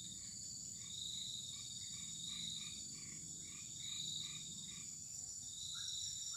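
Insects buzzing steadily at a high pitch, swelling and fading in slow pulses, with a run of short repeated frog calls, about three a second, over the first few seconds.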